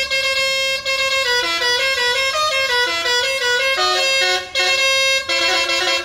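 Basuri telolet musical air horn on an intercity bus, with doubled trumpets, playing a very loud tune of stepping notes. It breaks off briefly twice, about four and a half and five seconds in.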